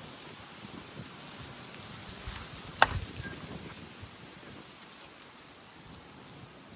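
A Miken slowpitch softball bat striking a pitched softball once, a single sharp crack with a short ring about halfway through, over steady wind noise on the microphone.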